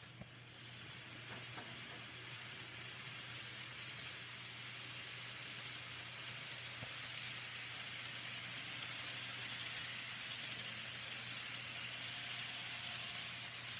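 Faint steady whirring hiss of an N-scale model train running on the layout's track, growing louder in the second half, over a steady low electrical hum, with a few light clicks.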